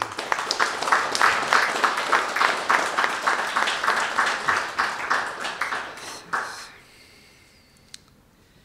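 Audience applauding, many hands clapping together; the clapping dies away about two-thirds of the way through.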